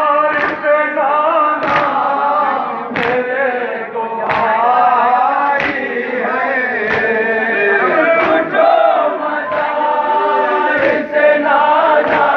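A group of men chanting a nauha (Shia lament) together, with the crowd's hands striking their chests (matam) in time, a sharp beat about every 1.3 seconds.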